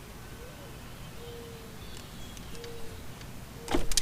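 Low background with a few faint, short whistling tones, then a single sharp click near the end from hand work on the outboard's wiring harness.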